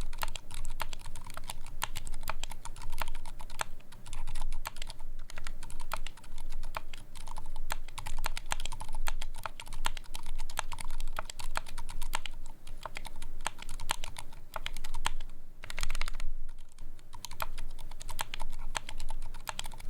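Typing sound test on a custom mechanical keyboard with Roselios silent linear switches and PBT keycaps: a steady run of soft keystroke clacks, easing briefly about five seconds in and again around sixteen seconds. The gain is cranked up to make these quiet switches loud enough, leaving a low hum underneath. The builder feels it doesn't sound that good and blames stabilizers he probably didn't do the best job on.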